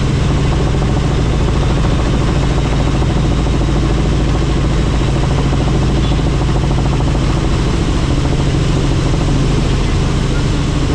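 Helicopter running steadily: a loud, even drone of engine and rotor with a strong low hum.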